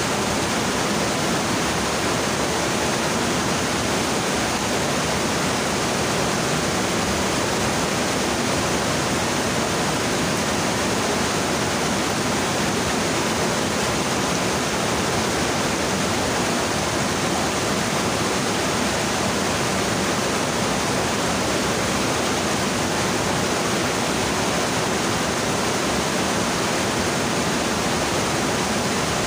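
Swift rocky stream rushing over boulders and through small cascades, a steady, unchanging rush of water.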